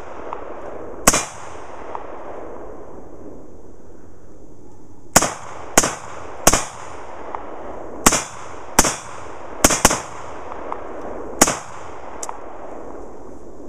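Mini Draco AK pistol in 7.62x39 firing about nine single shots at an uneven pace, some in quick pairs, each crack trailed by a rolling echo.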